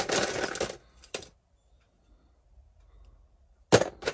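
Small circuit boards clattering against each other and a plastic tub as they are picked through, for about a second. After a short quiet, two sharp clicks come near the end.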